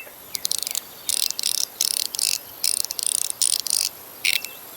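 Tuning-fork fidget slider being worked by hand: repeated short bursts of high metallic chattering, about eight of them, over a thin high ringing tone that lasts throughout.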